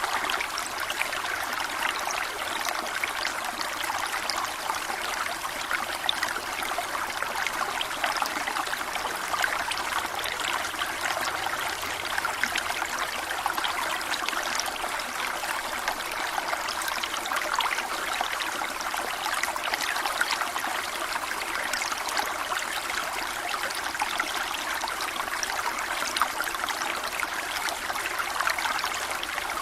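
A small brook flowing, a steady babble and trickle of water over stones.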